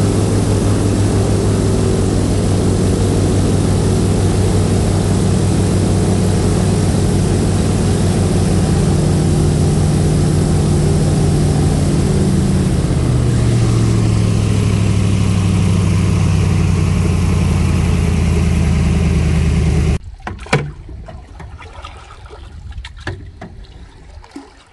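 Airboat engine and propeller running loudly and steadily, easing down in speed about halfway through, then cutting off abruptly near the end, leaving only small knocks and water sounds.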